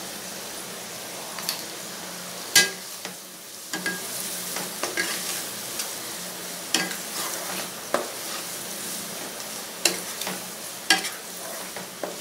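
Carrots and green beans sizzling in hot ghee and oil in a kadai, stirred with a wooden spatula that knocks and scrapes against the pan every second or two, loudest about two and a half seconds in.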